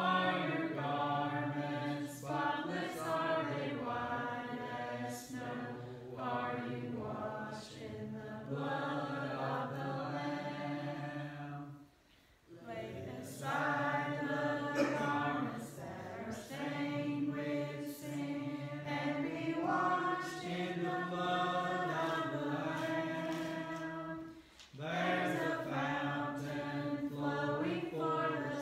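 Church congregation singing a hymn together in long sustained lines, pausing briefly for breath about twelve seconds in and again near twenty-five seconds.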